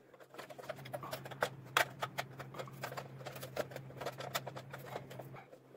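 Small plastic lamp sockets of a fluorescent light fixture clicking and tapping against the fixture housing as they are handled and slid into its end slots: irregular light clicks over a low steady hum.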